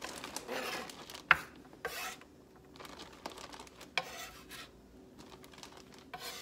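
A kitchen knife scraping chopped vegetables across a wooden cutting board while they are scooped into a plastic zip-top bag, in short rasping strokes. A sharp knock comes about a second in, with lighter ticks after it.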